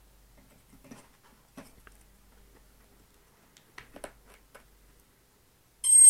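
Faint clicks and taps of a battery lead being handled and plugged into an Eachine Falcon 250 Pro racing quadcopter, then near the end a sudden loud, high electronic beep as the quad powers up, its ESCs sounding their start-up tone through the brushless motors.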